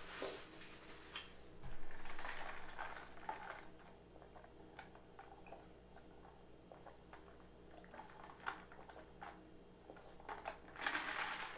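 A person eating crab close to the microphone: quiet chewing and lip smacking with scattered small clicks. Louder stretches of wet mouth noise come about two seconds in and again near the end.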